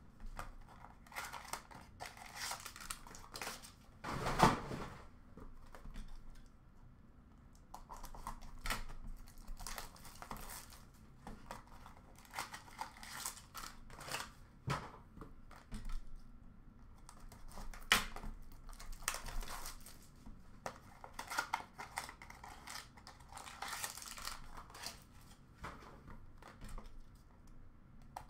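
Hands opening a box of baseball card packs: intermittent crinkling and tearing of the wrapping, with small clicks and rustles as the box and packs are handled, a little louder about four seconds in and again near eighteen seconds.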